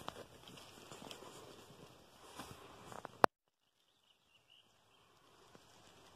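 Rustling and handling noise as someone moves through leafy bog plants, with scattered small clicks. About three seconds in there is a single sharp click, and the sound drops out abruptly to silence before a faint hiss returns, as at an edit between clips.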